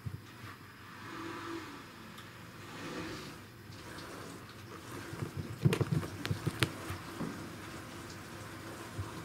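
Soft thumps and taps of a Norwegian Forest Cat's paws batting at a hand and onto the wooden floor and rug from under a fabric cube, with a quick flurry of them a little past halfway and one more near the end.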